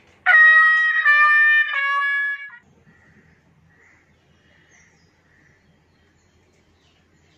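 A comedy sound-effect sting: three sustained brass notes, each lower than the last, in the 'sad trombone' wah-wah-wah style that marks a letdown. It lasts about two seconds, then only faint room tone.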